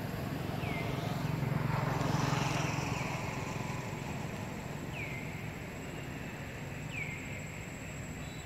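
Outdoor background with a vehicle's low hum swelling and fading as it passes, loudest about two seconds in. A short, high, falling chirp repeats four times, about every two seconds.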